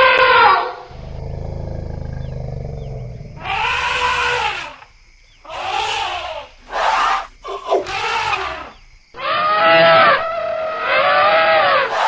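Elephants calling. A pitched trumpet ends just after the start, then a low rumble lasts about two seconds. Four harsh trumpet blasts follow, and a longer pitched trumpet call comes near the end.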